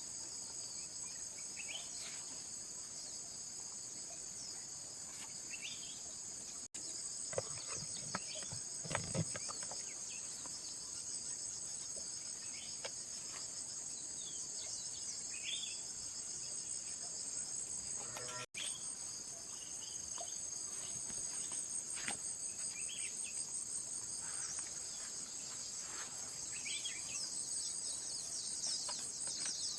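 A steady, high-pitched chorus of chirring insects, with a few faint knocks and scrapes of handling underneath.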